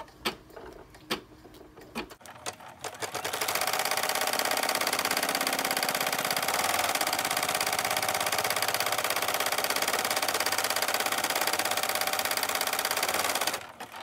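Single-needle embroidery machine stitching the placement outline of an appliqué design, heard sped up as a fast, even rattle. A few faint clicks come first, then the stitching starts about three seconds in and stops shortly before the end.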